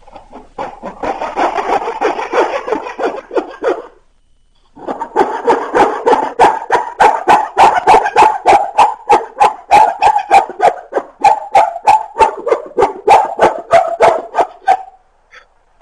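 Rapid hard knocking of blows driving a blade into the end of an upright wooden stick held on a wooden board, about three to four strikes a second. There is a short pause about four seconds in, and the blows stop just before the end.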